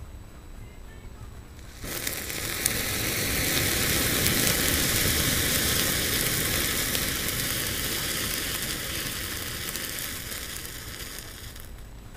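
Electrically ignited rocket igniter powder flaring up suddenly about two seconds in and burning with a loud hiss and crackle. It fades slowly over about ten seconds and dies away shortly before the end.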